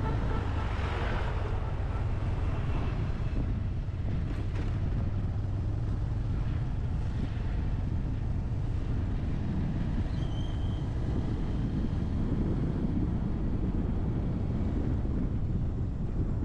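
Motorcycle engine running steadily while riding, a constant low rumble with wind noise over it.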